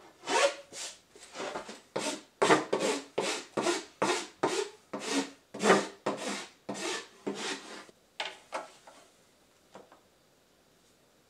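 Hand file rasping along the edge of a recycled synthetic decking board being shaped into a snowskate, in quick regular strokes about two to three a second. The filing stops near the end, followed by one light tap.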